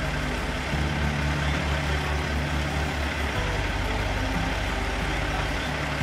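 Diesel semi truck engine idling steadily, with a rhythmic low throb from about a second in until past three seconds.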